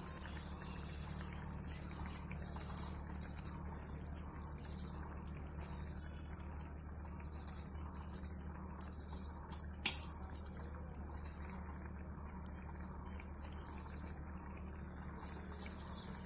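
Tomato-onion masala gravy bubbling steadily in a pan at a boil, with one small click about ten seconds in.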